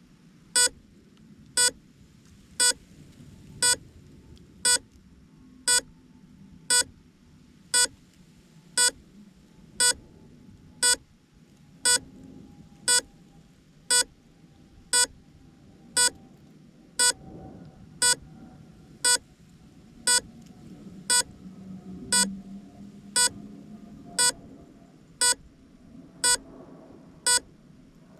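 An FPV quadcopter's beeper sounding a short, sharp beep about once a second, on and on: the lost-model alarm of a downed, disarmed drone.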